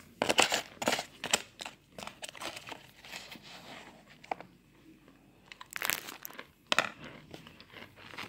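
Cornstarch baby powder crunching and squeaking as a plastic spoon presses and scrapes through packed chunks. It comes in irregular bursts, loudest in the first second and a half and again about six and seven seconds in.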